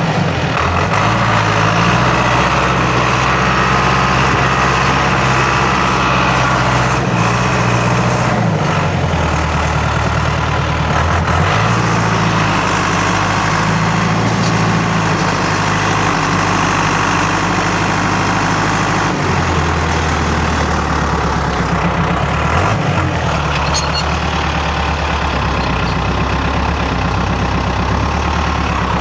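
Timberjack cable skidder's diesel engine running hard while pushing snow, its revs stepping up and down several times, about a second, eight, eleven, nineteen and twenty-two seconds in.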